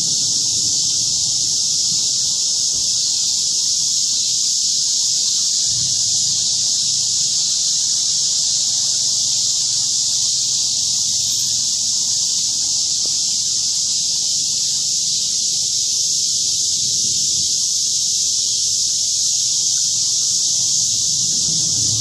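A chorus of late-summer cicadas making a steady, loud, high-pitched drone. Under it is a faint low rumble of distant thunder that swells a little about six seconds in and again near the end.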